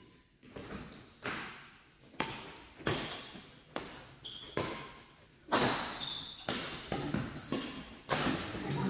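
Badminton rackets striking the shuttlecock in a doubles rally: sharp smacks about once a second, ringing in a large hall. A few short shoe squeaks come from the court floor between hits.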